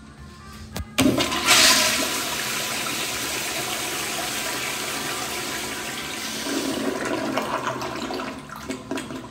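Commercial toilet flushing: a click, then a sudden loud rush of water into the bowl about a second in that runs steadily, swells again near the end and tapers off just before the end.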